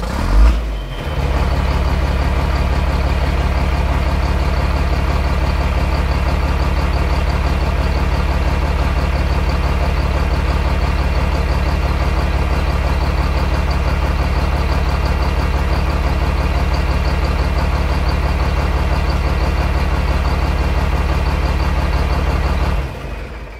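A heavy engine running steadily at a constant low drone, with a brief louder surge as it comes in and a fade-out near the end.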